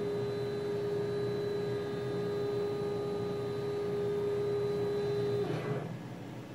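NEMA-34 stepper motor driving a CNC router's X axis at a slow 119 inches per minute: a steady, pure whine that breaks off about five and a half seconds in, with a short rustle as the carriage slows and stops.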